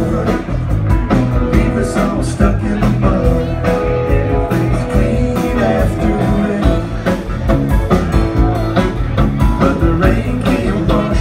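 Live rock band playing on stage: drum kit keeping a steady beat under electric guitar and keyboards, loud and continuous.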